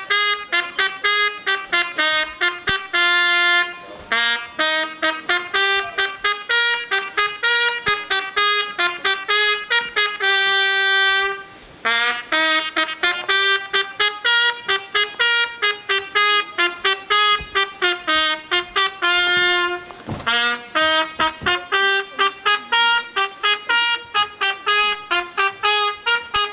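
A solo brass instrument playing a fast melody of short detached notes, with a few long held notes and two brief pauses, near the middle and about three-quarters of the way in.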